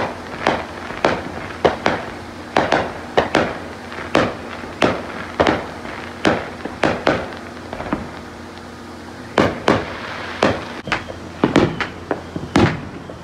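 Neighborhood fireworks going off: a steady string of sharp bangs and pops, about one or two a second, thinning out a little past the middle and then coming thick and fast near the end.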